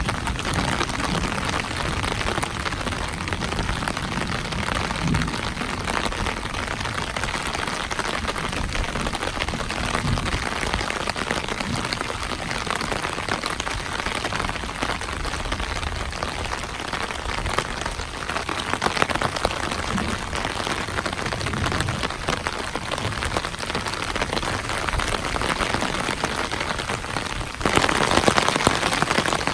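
Heavy rain pouring down steadily in a downpour, then abruptly louder near the end.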